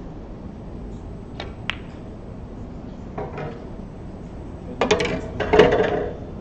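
Snooker balls clicking on the table: two sharp knocks a third of a second apart, then near the end a louder, longer run of clacks.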